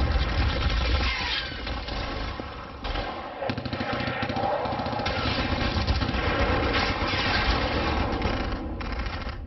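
War sound effect of a battle: dense continuous gunfire over a heavy rumble of explosions, with a few falling whistles. It dips briefly about three seconds in and thins out near the end.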